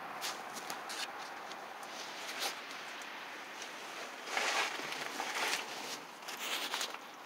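Rustling and scraping handling noise from someone moving about under a vehicle with the camera, with scattered clicks and a few louder scuffs about four and a half and five and a half seconds in.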